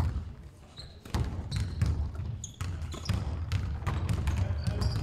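A basketball bouncing on the wooden floor of a large sports hall as it is dribbled in play, with sharp repeated thuds. Short high squeaks, typical of trainers on the court, come in the second half.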